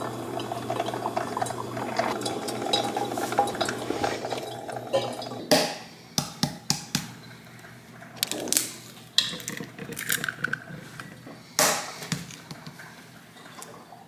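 Drip coffee maker gurgling and hissing as it brews, then a series of sharp clicks and knocks of kitchen work at a frying pan on the stove.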